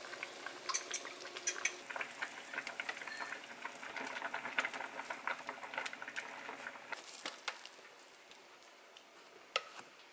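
Pots simmering on a stove: a braise and a soup bubbling and sizzling, with light clicks of a metal spoon against the pan. It quietens about seven seconds in.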